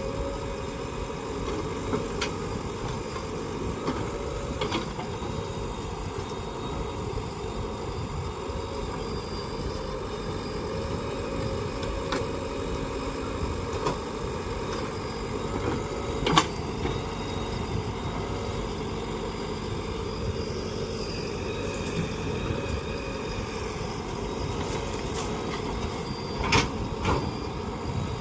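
JCB 3DX backhoe loader's diesel engine running steadily, with a few sharp knocks now and then, the loudest about sixteen seconds in.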